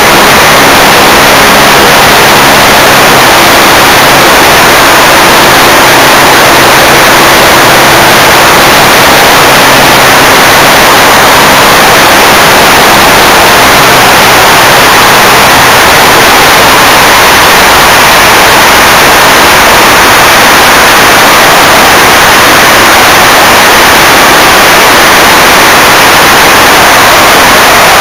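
Loud, steady rush of wind and airflow on the microphone of a camera mounted on a KZ III light aircraft's wing strut. Under it is the drone of the aircraft's piston engine, whose tone fades into the wind noise after about 16 seconds.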